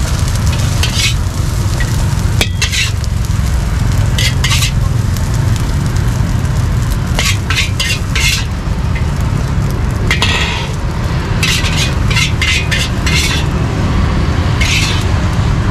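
Metal wok spatula scraping and clinking against a steel wok in short, repeated strokes as fried rice is scooped out, over a steady low rumble.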